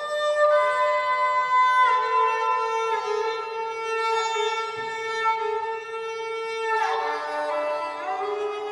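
Esraj, an Indian bowed string instrument, played with long sustained bowed notes. The pitch changes a few times, with a downward slide into a lower note about seven seconds in.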